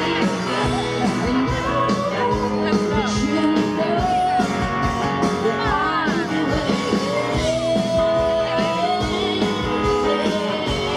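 Live rock band playing a song, with a singer's voice over the instruments and a steady beat.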